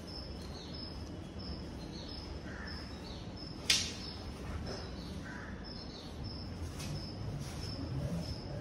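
Wooden fighting stick worked through an Adimurai stick form, with one sharp crack a little under four seconds in. A high short chirp repeats about twice a second throughout.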